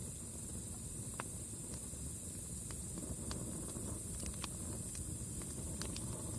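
Wood campfire burning: a steady low rush of flame with scattered sharp crackles and pops from the burning wood, over a steady high hiss.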